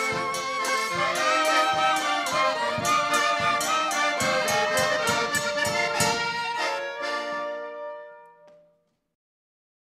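Polish village folk band music, a fiddle-led tune over a steady percussive beat. It ends on a held chord about seven seconds in that dies away over the next two seconds.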